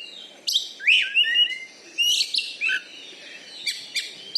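Oriental magpie-robin (kacer) singing: loud, sharp rising whistled notes and chattering phrases, busiest in the first couple of seconds, then sparser short notes.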